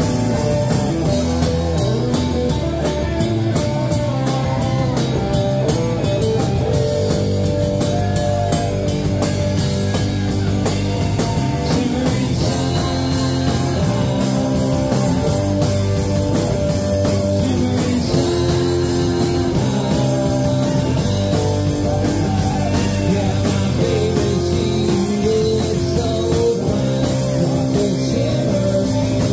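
A live rock band playing: electric and acoustic guitars over a drum kit, with a man singing lead.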